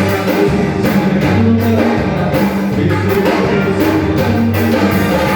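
A band playing through a song at rehearsal: a drum kit keeping a beat under held low notes that change pitch every half second or so, with other instruments on top.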